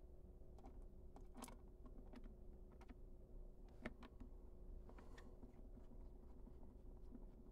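Faint scattered clicks and ticks of a small screwdriver turning screws back into the plastic back case of a Casio fx-9750GIII graphing calculator, the sharpest click about four seconds in, over a faint steady hum.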